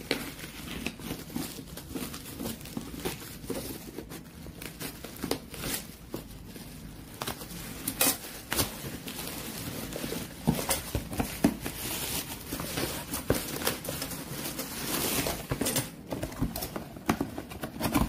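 Packaging being opened: plastic wrapping crinkling and tearing as it is cut with scissors, then a cardboard box being handled and pulled open. Irregular rustles with sharp knocks and clicks throughout.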